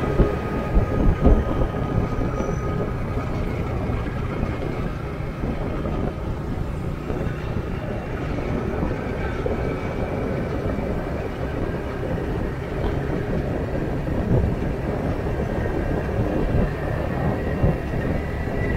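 Motorcycle cruising at about 50 km/h: steady engine and road noise mixed with wind rushing over the microphone, with a few brief gusty peaks about a second in.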